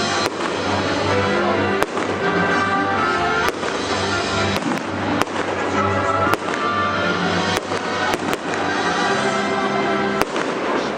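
Firework shells bursting, about a dozen sharp bangs at irregular intervals, over steady music.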